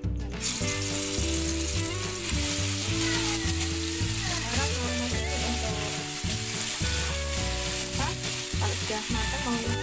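Ground garlic and bird's-eye chili paste hitting hot cooking oil in a wok and sizzling, starting suddenly about half a second in and holding steady, with background music underneath.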